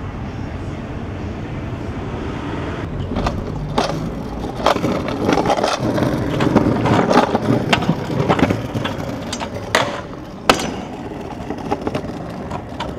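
Stunt scooter rolling, then a run of clacks, scrapes and thuds as the deck and wheels hit the ground through tricks and landings, with one sharp knock about ten and a half seconds in.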